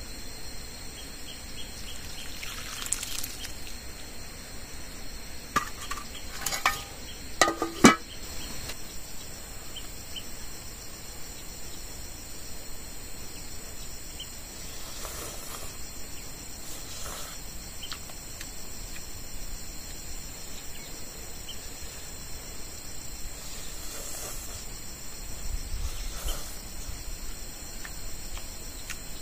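A steady insect chorus with high, even trilling. A few sharp clinks and knocks come about six to eight seconds in, the loudest near eight seconds.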